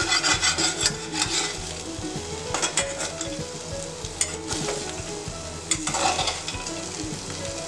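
A spatula stirring and scraping fish pieces and roasted peanuts around a stainless steel frying pan over a steady sizzle of hot oil. The scraping is loudest in the first second and again about six seconds in.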